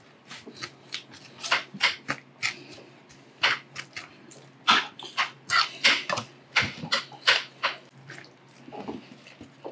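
A spoon mixing a wet spicy tuna mixture with mayonnaise in a ceramic bowl: a string of short, irregular clicks, scrapes and squishes.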